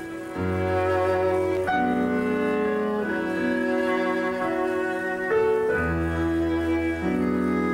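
Live chamber music on bowed strings, a violin over lower strings, playing slow held notes. The chord changes every second or so, above a low sustained bass.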